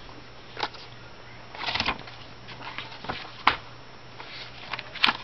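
Pages of a large book being handled and turned, with a short paper rustle a little under two seconds in and a few short clicks.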